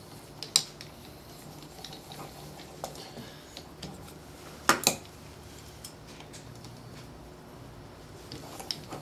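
Small metal clicks and clinks from fitting a crank handle onto a saw's keel assembly: one click about half a second in, a sharp double clink near the middle, and a few light ticks near the end, over a faint steady hum.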